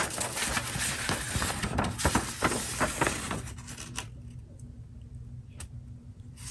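A folded paper quick-install guide being unfolded and handled, rustling and crinkling for about three and a half seconds, then only a few faint rustles and taps.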